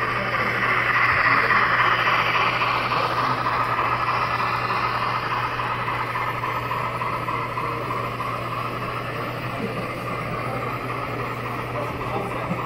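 N scale model freight train running past on the layout track, its wheels rolling on the rails as a steady noise that is loudest about two seconds in and slowly eases off, over a steady low hum.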